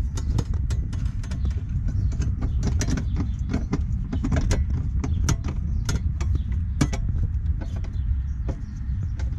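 Small, irregular metal clicks and taps from a hand screwdriver working a screw into the air-box bracket in a car's engine bay, over a steady low rumble.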